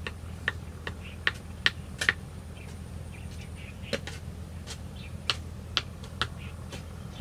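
Sharp knocks of a tool striking bamboo, about a dozen irregularly spaced blows over a steady low hum.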